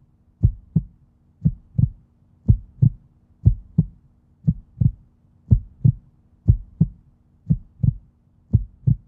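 Heartbeat sound effect on a performance soundtrack: steady paired lub-dub thumps about once a second, with a faint steady hum underneath.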